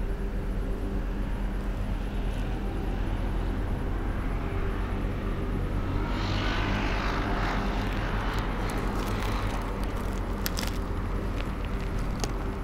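Steady low motor hum from nearby traffic, swelling into a rush about six seconds in as a vehicle passes on the nearby road. In the second half, light clicks and rustles as a red fox noses through rubbish close by.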